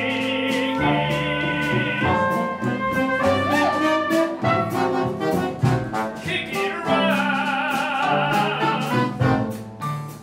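Small jazz band playing a lively 1920s-style number, with horns holding wavering chords over regular drum hits.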